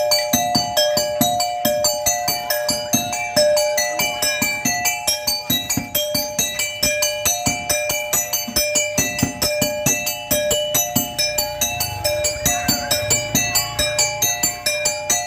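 Music of quick, repeated struck metal notes over a steady beat, about three to four strokes a second, with a held pair of tones underneath.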